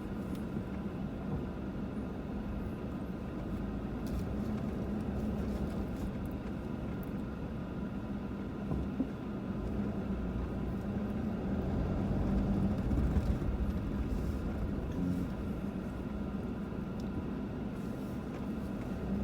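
A vehicle's engine running steadily at low speed over a rough, bumpy dirt road, with occasional knocks from the bumps.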